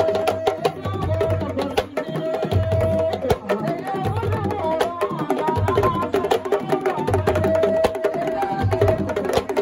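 Sabar drums and a tama talking drum playing a fast, dense rhythm, with a held note that comes and goes over the drumming.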